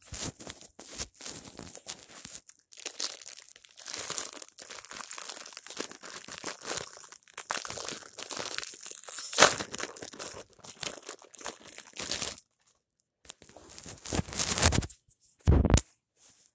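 Clear plastic sandwich wrapper crinkling and tearing close to the microphone as a sealed peanut butter and jelly sandwich is opened. The crackling pauses about twelve seconds in and returns briefly, followed by a short low thump near the end.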